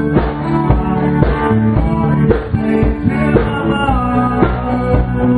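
Live band jamming: amplified electric guitars playing over a drum kit, with regular drum hits.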